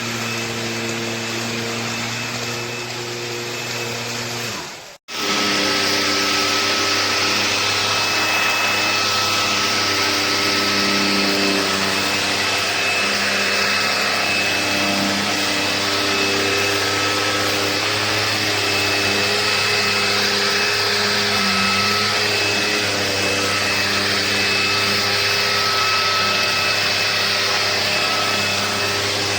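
Bissell PowerClean FurGuard cordless stick vacuum with a 280 W motor, running steadily. It cuts out for a split second about five seconds in and comes back a little louder.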